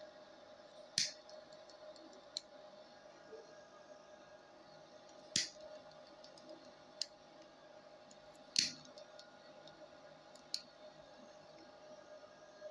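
A pocket lighter being struck again and again to light cigarettes: three louder strikes, about a second in, midway and past two-thirds, with shorter sharp clicks between. Under it runs the steady hum of a small homemade fan extractor drawing off the smoke.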